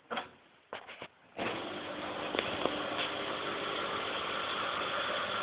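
Servis M2000 condenser tumble dryer: a few short clicks from its controls, then about a second and a half in it starts running with a steady hum. The heat comes on but the drum does not turn, a fault in its drum drive.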